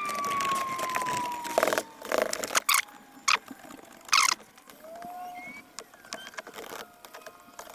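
Black cloth tape being peeled off a fabric car seat. It tears with a dense crackle and a thin squeal falling in pitch over the first second and a half, then goes on in scattered sharp crackles and clicks with a short rising squeak.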